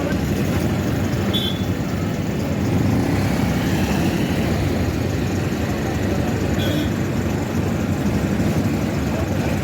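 Steady road traffic noise from passing vehicles, with two brief high chirps about a second and a half in and again about seven seconds in.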